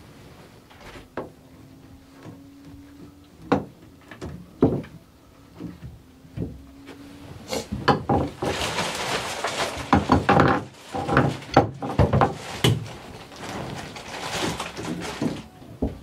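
Hands handling small shower-valve parts and tools: scattered light clicks and knocks, then, from about halfway, several seconds of busy clattering and rustling.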